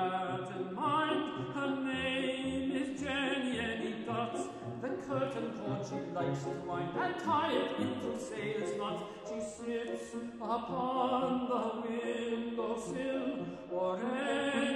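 Classical art song: a solo voice singing with piano accompaniment.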